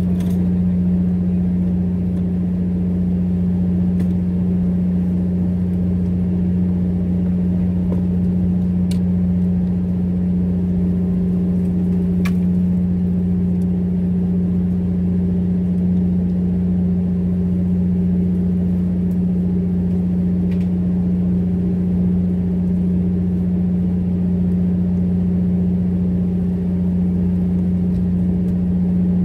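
Fishing boat's engine running steadily: a constant low hum that never changes. A couple of faint clicks come through it near the middle.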